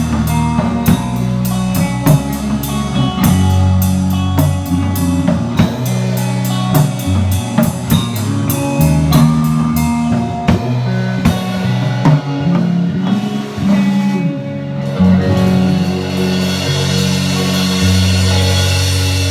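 Live rock band playing, heard from beside the drum kit: fast, steady drum hits over bass and guitar. About fifteen seconds in the drum hits stop, leaving held bass and guitar notes under a cymbal wash.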